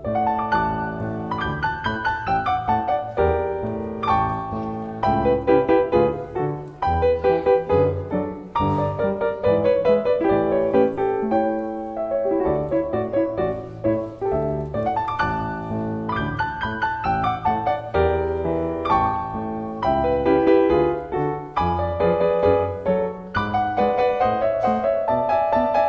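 Piano music accompanying the dance: a melody of many separately struck notes over lower bass notes.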